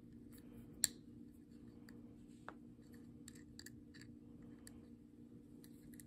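Faint, scattered metallic clicks and scrapes of two steel wires picking a small brass lever padlock, the sharpest click about a second in, over a low steady hum.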